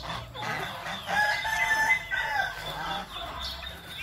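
A rooster crowing once, a held call of about a second that starts about a second in and falls away at the end, among other chickens' calls.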